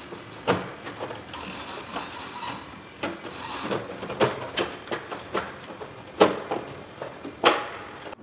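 Irregular plastic clicks and knocks from a Carrier split air conditioner's indoor-unit casing being handled and fitted back together, about ten in all, the loudest two near the end.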